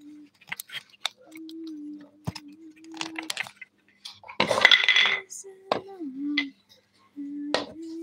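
Sharp clicks and crackles of a plastic bag and leaves as a rose-ringed parakeet picks at amaranth greens, with a louder crinkling rustle of the bag a little past halfway. A person's voice holds a low sung note twice, and the pitch dips once between them.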